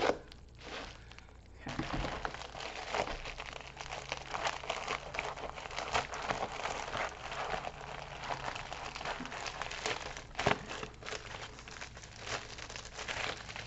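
Crinkling and rustling of a white padded mailer's plastic-and-paper wrapping, handled and worked open by hand. It starts about two seconds in and continues as a dense run of small crackles.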